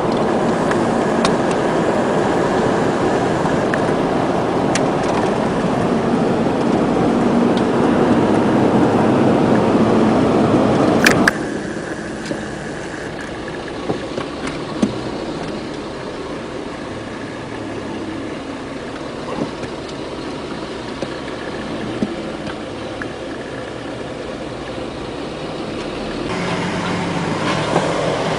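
A car running, heard from inside the cabin: steady engine and road noise that drops abruptly to a quieter level about eleven seconds in, with a few light clicks.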